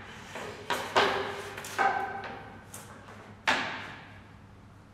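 Wooden table parts knocking against each other and the box as they are laid into a cardboard carton: about six hollow wooden knocks, the loudest about a second in, the last about three and a half seconds in.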